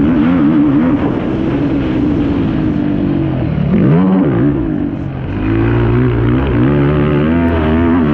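Yamaha YFZ450R quad's single-cylinder four-stroke engine running hard under racing throttle, its revs rising and falling. About four seconds in the revs drop sharply and pick up again.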